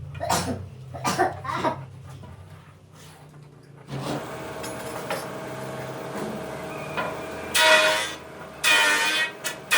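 A few sharp knocks of wood being handled or tapped, then about four seconds in a woodworking power tool starts up and runs steadily. Near the end it cuts into the wood in two loud bursts.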